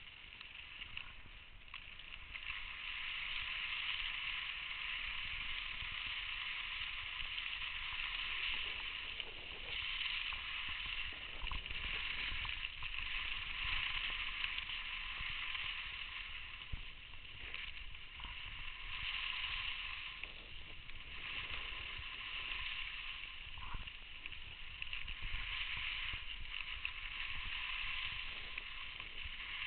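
Skis scraping and hissing over packed snow during a downhill run, swelling and fading every few seconds with the turns, over a low rumble.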